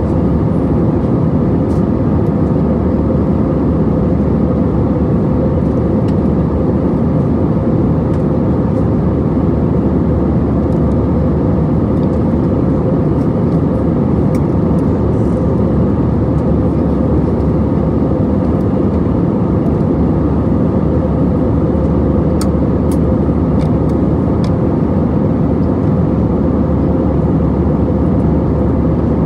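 Steady engine and airflow drone of an Airbus A320-214's CFM56-5B engines, heard from inside the passenger cabin, with a constant hum and no change in level.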